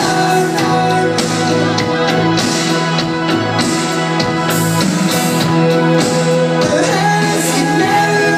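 Live rock band playing with singing over held chords and drum hits, loud and steady as heard from the audience.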